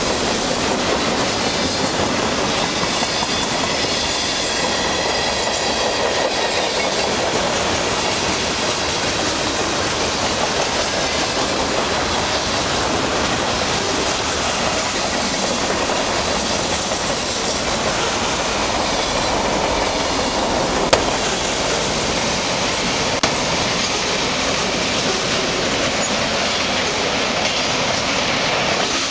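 Freight train cars rolling past close by: a steady rumble of steel wheels on the rails with clickety-clack over the rail joints and a faint wheel squeal a few seconds in.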